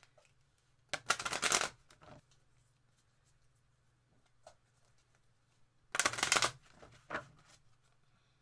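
A deck of Energy Oracle cards being shuffled by hand: two bursts of quick card shuffling, about a second in and again about six seconds in, each followed by a shorter one, with light card taps between.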